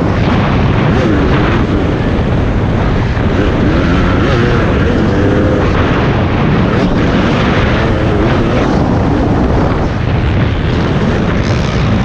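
A dirt bike's engine revving up and down as it is ridden over rough terrain, with heavy wind rumble on the microphone.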